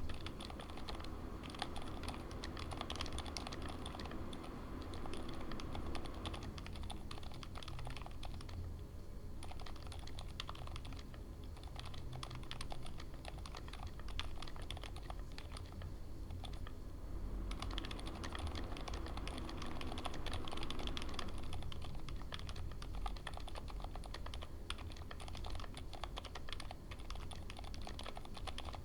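Continuous typing on a mechanical keyboard fitted with IDOBAO x Kailh Elf Ultra-Silent Green linear switches: silent switches giving a dense patter of key presses, busiest in the first few seconds and again a little past the middle.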